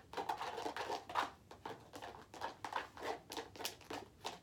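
Plastic spoon stirring a glue and shaving-cream slime mixture in a plastic bowl, short repeated strokes about two or three a second, the mixture starting to activate.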